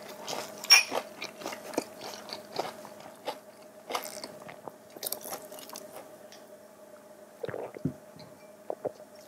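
Two drinking glasses clink once in a toast about a second in, with a brief bright ring, followed by gulps and chewing mouth noises.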